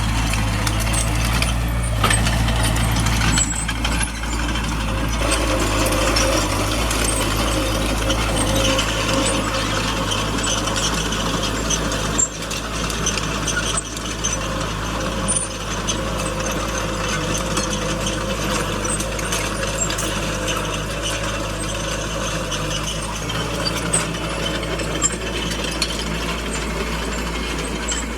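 Small crawler bulldozer's diesel engine running steadily at work, with continuous metallic clanking and clicking from its steel tracks and undercarriage.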